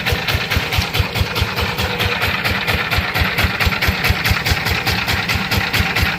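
Single-cylinder diesel engine of a Sifang power tiller idling, an even knocking beat of about six to seven strokes a second.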